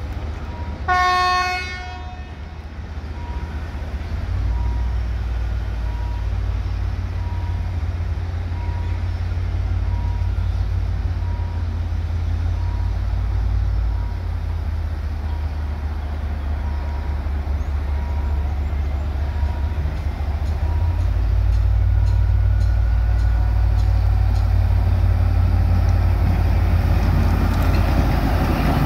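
Thai railway HAS-class diesel shunting locomotive sounding one short horn blast about a second in, then its engine rumbling steadily as it approaches. The rumble grows louder over the last third as the locomotive runs close past.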